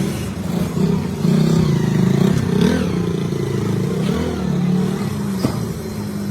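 Engine running, its pitch wavering up and down, with a single sharp click about five and a half seconds in.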